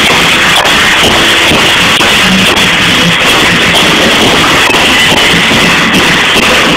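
Loud background rock music with distorted electric guitar and drums.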